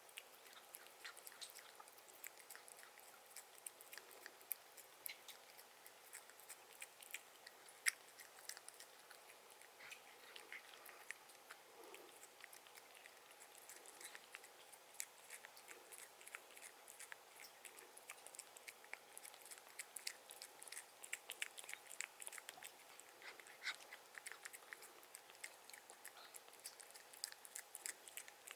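A house cat eating, its chewing making many small, irregular crisp clicks.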